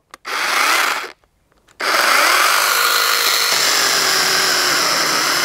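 Hychika CS18D 8-inch brushless cordless mini chainsaw cutting into a log. It runs for about a second, stops briefly, then starts again and cuts steadily. Its 18 V battery is down to its last bar, and the saw is cutting out between cuts.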